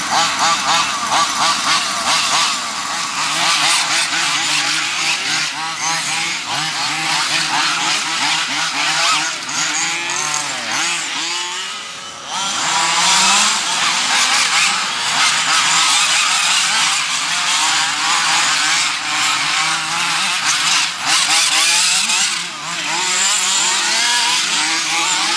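Several 1:8 scale nitro RC off-road buggies running together, their small two-stroke glow engines revving up and down in a high, buzzing, overlapping whine. The level dips briefly about halfway through.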